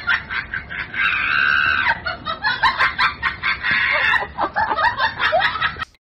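A woman laughing hard in high-pitched shrieks, with quick pulses of laughter broken by two longer squeals.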